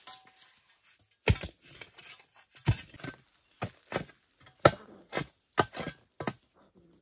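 About ten dull, irregular knocks of a bamboo pole being jabbed into the earth of a burrow, roughly two a second, starting about a second in.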